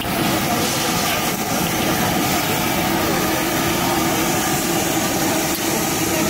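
Steady roar of a high-pressure gas burner under a large iron kadhai, over the hubbub of a busy street.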